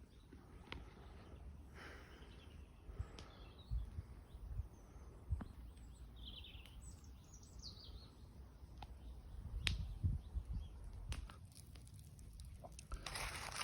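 Faint outdoor ambience: birds chirping now and then over a low rumble, with scattered small clicks and knocks.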